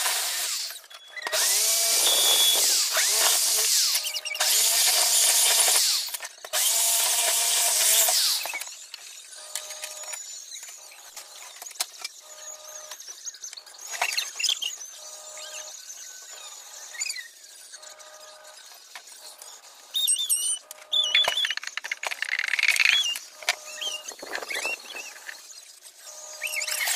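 Electric drill running against an aluminum window frame in three bursts of about two seconds each, then quieter clicks and knocks of aluminum parts being handled, with a few shorter bursts near the end.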